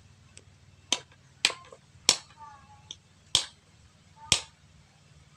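Five sharp cracks, unevenly spaced, from a kitchen knife cutting through the joints and bones of a plucked chicken.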